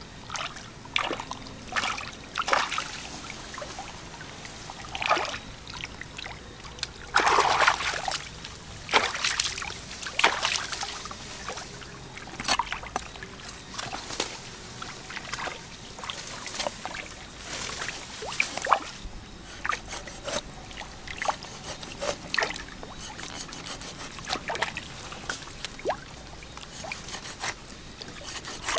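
Water splashing and trickling in irregular bursts, with a longer, louder splash about a quarter of the way in.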